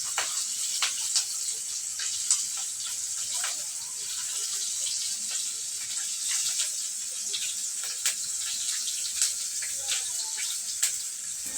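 Steady rain falling, a high hiss with scattered sharp drips and drop hits.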